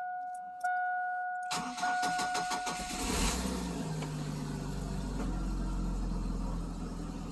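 A dashboard warning chime sounds in a steady tone, broken twice. Then the 1998 Chevy S10's starter cranks for about a second and a half, and the engine catches about three seconds in and settles into a steady idle.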